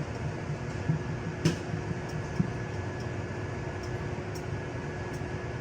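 Microwave oven running with a steady hum, with a few light clicks of kitchenware about one and a half and two and a half seconds in.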